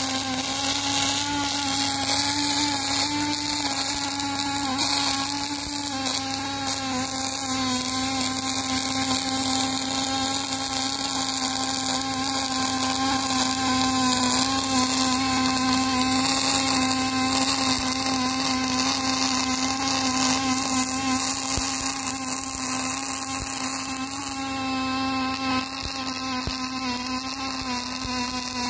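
MIG welding arc burning steadily as a bead is laid around a steel ring on thick steel plate: a continuous buzzing hiss over a steady hum.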